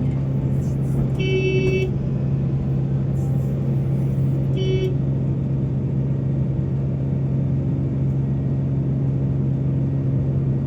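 Heavy diesel mining machinery running steadily with a deep, even drone, with two short horn toots about three seconds apart near the start.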